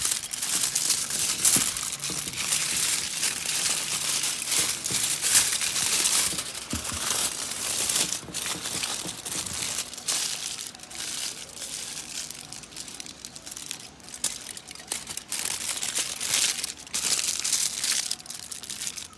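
Aluminium foil crinkling and crumpling as it is folded and pressed by hand around a whole stuffed fish: irregular crackling that comes on and off.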